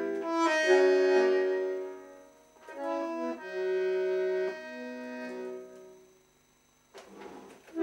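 Solo bandoneon playing slow, held chords in two short phrases, the second fading out about six seconds in.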